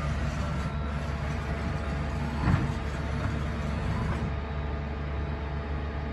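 Steady low hum of industrial machinery, with one short knock about two and a half seconds in.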